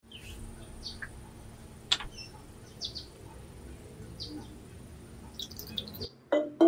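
Birds chirping in short, scattered calls over a steady low background hum, with one sharp tick about two seconds in. Near the end the ambience cuts off and a few notes of keyboard music begin.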